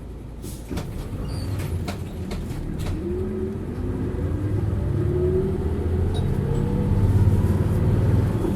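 Hino U-HT2MLAA Blue Ribbon bus's diesel engine pulling away and accelerating, growing louder with a whine that rises steadily in pitch, and a few sharp knocks or rattles in the first seconds. The bus is one in poor condition, noted for strong abnormal running noise.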